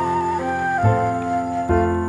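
Background instrumental music: a flute-like melody over sustained low notes.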